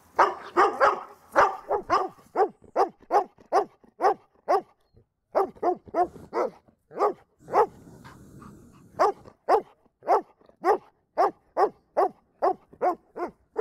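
DDR-line German Shepherd barking hard and repeatedly, about two barks a second, with two short breaks near the middle.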